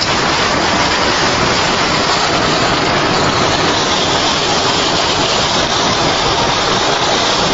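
Steady, loud rushing noise of a moving car, wind and road noise with no let-up.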